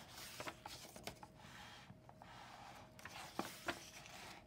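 Faint rustle of a picture book's paper page being turned by hand, with a few soft light taps as the book is handled.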